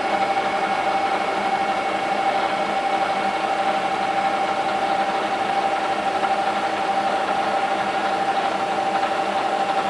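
Bridgeport vertical mill's 2 HP head running steadily, spindle in high range, with the quill power feed driving the quill down; an even whine with a steady tone from the freshly rebuilt head (new bearings, bushings and belts), which sounds smooth and healthy.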